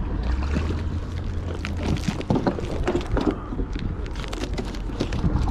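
Wind rumbling on the microphone, with fabric rubbing and scattered knocks as the camera is handled against clothing.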